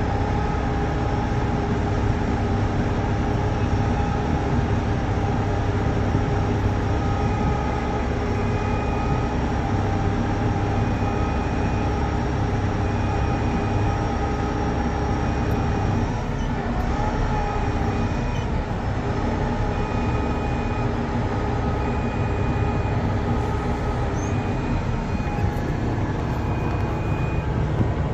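Heavy-duty tow truck's diesel engine running steadily, heard from inside the cab while the truck reverses. A short high beep repeats about every one and a half seconds from about a third of the way in.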